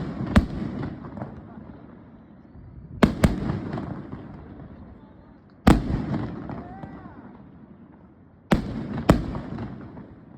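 Aerial fireworks shells bursting: about six sharp booms, some in quick pairs, each trailing off in a low rolling echo over a couple of seconds.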